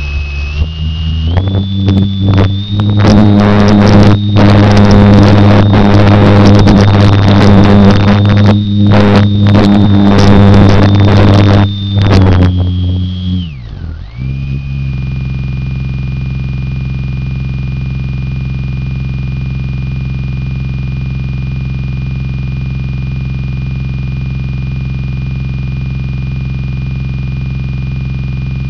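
Electric motor and propeller of a Slow Stick RC plane whining at high throttle, rising in pitch at first, with rattling wind buffeting and vibration on the airframe; about thirteen seconds in the whine falls away sharply as the motor winds down. After that a perfectly steady hum with a high tone holds unchanged.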